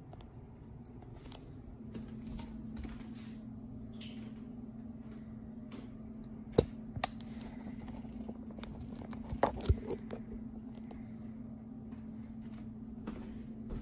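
Handling noise: scattered clicks and knocks from hands on the phone and the air fryer's packaging, over a steady low hum. The sharpest are two knocks about six and a half seconds in and two more about nine and a half seconds in.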